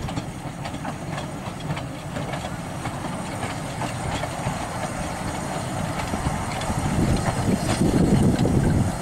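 A Bagnall 2-4-0 narrow-gauge steam tank engine and its four-wheeled carriages run slowly over the rails, rumbling with scattered wheel clicks. It grows louder near the end as the engine draws close by.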